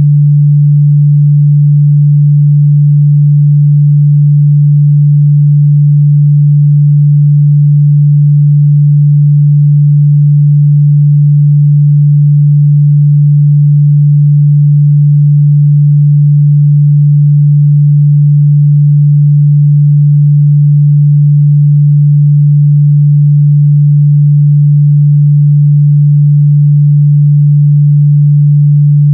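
A steady 146 Hz sine-wave test tone, a single low hum at constant loudness, used to check the mid-bass response of speakers and headphones.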